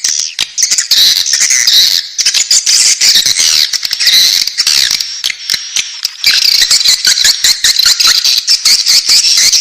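Swiftlet chicks calling in the nest: rapid, high-pitched chirping that is nearly unbroken, with short lulls about two seconds in and again around the middle.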